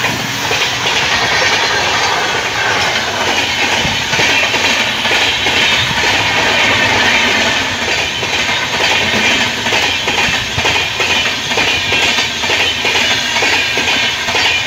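A passenger train of LHB coaches passing close by at speed: a loud, steady rush of wheels on rail with a rhythmic clickety-clack of wheelsets crossing rail joints.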